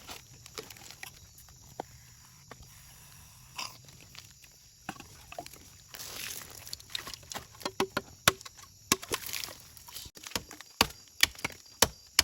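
Sharp chopping knocks on bamboo, a few scattered ones at first and then coming quickly over the last few seconds, with a couple of brief rustling scrapes between them.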